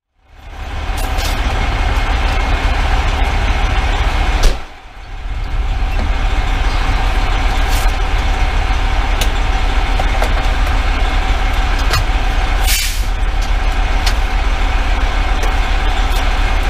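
Detroit Series 60 diesel of a 2010 Pierce Velocity fire engine running steadily, heard from inside the cab. A loud knock comes about four and a half seconds in, and a short hiss of air near the end.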